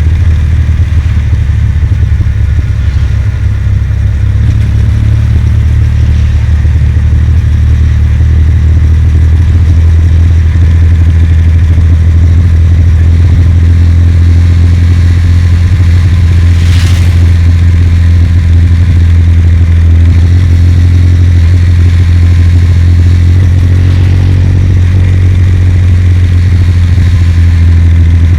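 Kawasaki W800's air-cooled parallel-twin engine running at a steady cruise while the motorcycle is ridden, its low, even exhaust note loud throughout. A brief hiss cuts across it about two-thirds of the way through.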